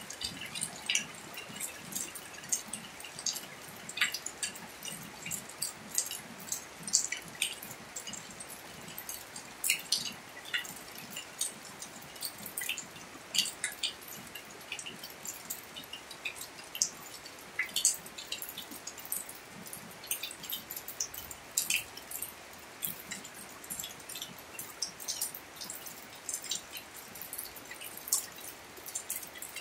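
Steady rain falling on a wet paved driveway: an even hiss with many irregular, sharp drips landing close by.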